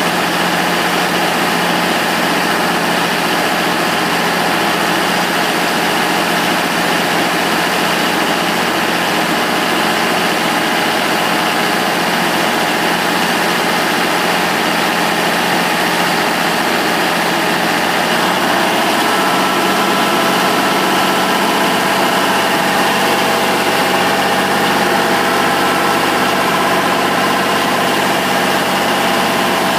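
Tub grinder's 650-plus-horsepower Cummins diesel engine running steadily. About two-thirds of the way through, its tone shifts slightly and a higher whine joins in and holds.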